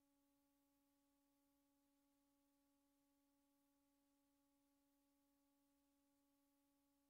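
Near silence: only a very faint, steady hum of a few even tones over faint hiss, unchanging throughout.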